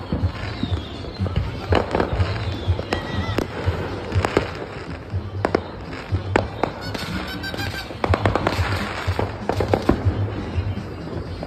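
Many fireworks and firecrackers going off, a steady run of sharp bangs and pops that comes thickest about eight to ten seconds in.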